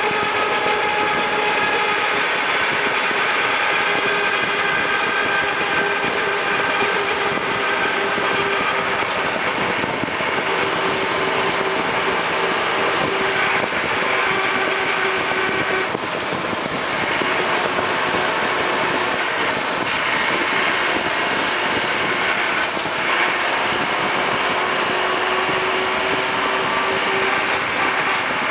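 Land Rover Defender 110 running, a steady mechanical drone with a whining tone that fades in and out several times; this whine is the annoying noise the vehicle makes.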